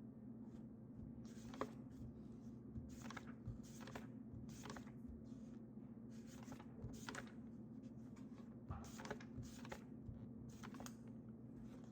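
Writing on paper: short, faint, scratchy pen strokes, about one a second, over a steady low hum.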